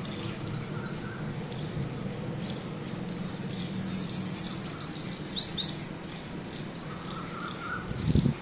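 A bird calling with a rapid trill of high, evenly spaced chirps lasting about two seconds, over a steady low background hum. A brief low thump comes near the end.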